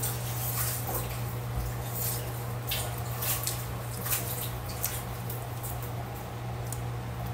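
Close eating sounds from biting and chewing soft boiled lesser yam: wet chewing with many short mouth clicks and lip smacks, over a steady low hum.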